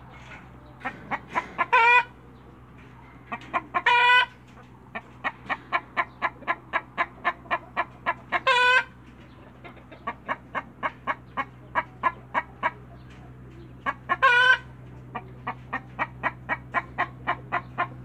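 Silver Laced Wyandotte chicken cackling: runs of quick clucks, each ending in a long, loud squawk, four times over.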